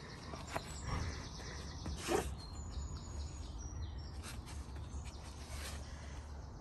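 Garden ambience: small birds chirping and singing over a low steady hum, with a few short clicks and rustles, the loudest about two seconds in.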